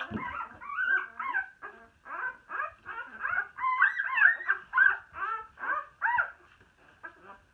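A litter of young puppies whimpering and squeaking, many short high calls overlapping one another as they scramble to nurse. The calls thin out near the end, and there is a low thump right at the start.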